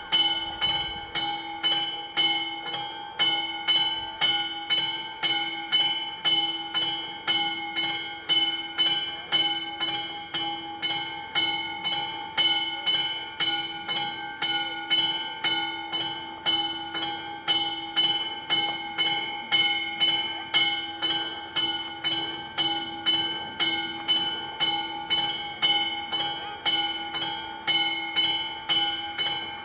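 Classic mechanical bell of an AŽD 71 level-crossing warning signal, struck over and over at an even pace, each stroke ringing and fading before the next: the crossing's warning that a train is approaching.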